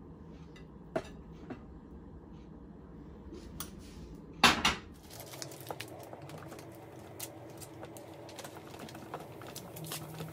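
Kitchen handling sounds: scattered light clicks and clinks of dishes and utensils, with one loud clatter about four and a half seconds in.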